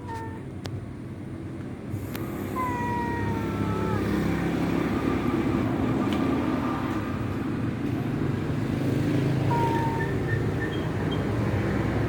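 A motor engine running steadily, growing louder about two and a half seconds in and then holding. A few short falling whistle-like calls sound over it.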